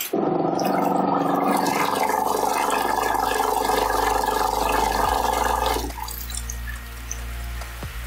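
Mini folding bucket washing machine switched on, its pulsator churning and sloshing the water hard. The churning starts suddenly, runs loud for about six seconds, then carries on more quietly.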